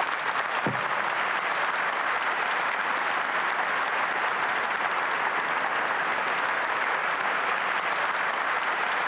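Audience applauding: a large crowd clapping steadily and without a break.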